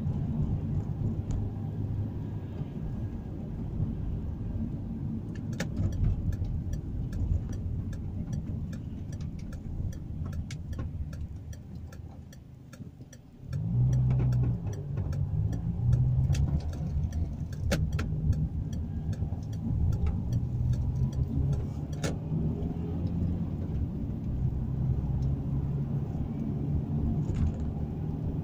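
Car engine and road noise heard from inside the cabin while driving. The noise drops as the car slows about halfway through, then the engine pulls away louder with a deeper hum. A run of regular ticks sounds through the middle.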